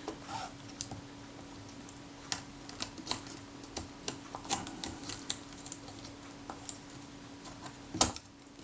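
Light, irregular clicks and taps of small metal camera parts as the rangefinder coupling arm of a Kodak Retina IIIC is worked down into the camera body. A sharper click comes near the end.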